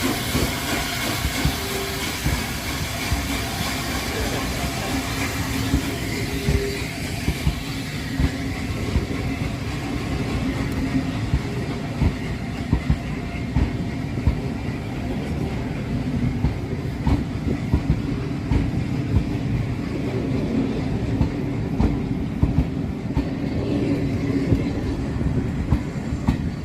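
Heritage steam train, hauled by the A1 Pacific 60163 Tornado, moving on departure: a steady rumble with wheels clicking over the rail joints throughout. A hiss fades out over the first several seconds.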